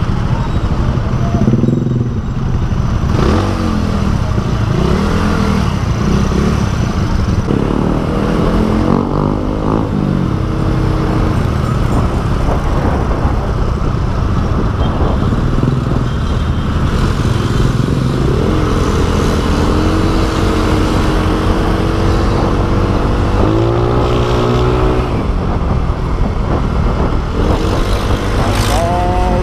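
Engine and road noise of a moving vehicle in traffic, with a constant low rumble and wind-like rush. Engine notes climb in pitch several times, clearest about a third of the way in and near the end.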